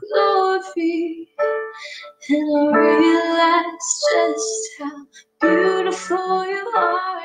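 Worship song: a voice singing over keyboard accompaniment, in phrases broken by short pauses.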